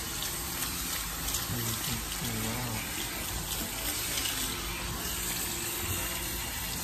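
Salon handheld shower sprayer running steadily, water spraying onto a head of hair and splashing into the shampoo basin as hands rinse it through.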